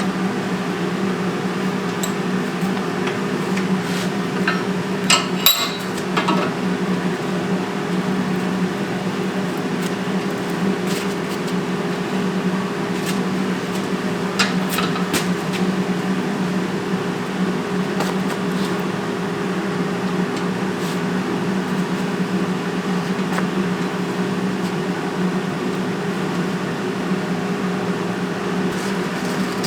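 Forge blower running with a steady hum, with a few scattered light metallic taps and clinks, a small cluster of them around five seconds in.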